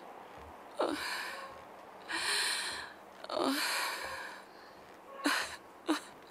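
A woman breathing heavily in ragged gasps, about five breaths, several starting with a short voiced catch that drops in pitch.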